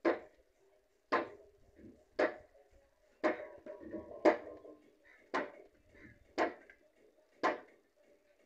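A steady rhythm of heavy blows, a tool striking about once a second, eight strikes in all, each with a short ringing tail.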